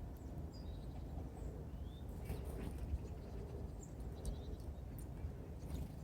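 Small songbirds at a winter feeder giving short, high chirps and calls, with a few sharp clicks in the middle and near the end, over a steady low background rumble.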